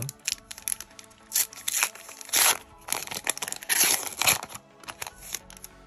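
Plastic wrapper of a Panini Adrenalyn XL trading-card booster pack being torn open and crinkled by hand, in an irregular run of sharp crackles, loudest near the middle, as the cards are pulled out.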